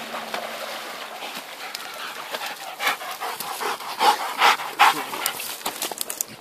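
A dog panting close by, loudest in a few short, breathy gasps from about three to five seconds in, over the steady rush of a stream.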